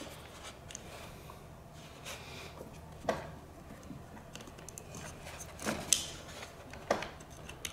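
Small hand-handling noises of cables and plastic connectors being pushed together. There is faint rustling and a few soft clicks, the clearest about three, six and seven seconds in.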